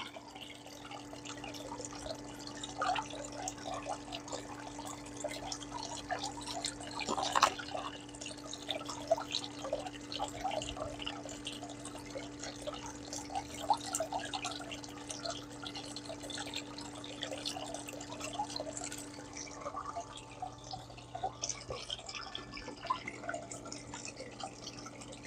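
Water trickling and dripping through a Goldbox gold concentrator running at low pressure, over the steady hum of its small water pump. One louder splash about seven seconds in.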